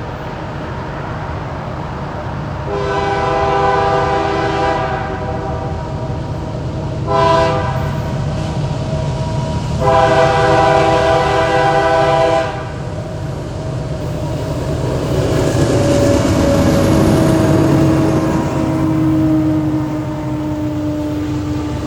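Canadian National locomotive's Nathan Airchime K3L horn sounding a long blast, a short blast and another long blast over the rumble of the approaching train. Then the locomotive rumbles past, with a lower tone that drifts slightly down.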